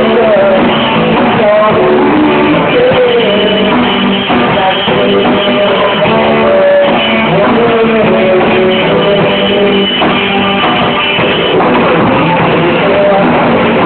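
Amateur rock band playing live: a male singer on a microphone over electric guitar, bass guitar and drums.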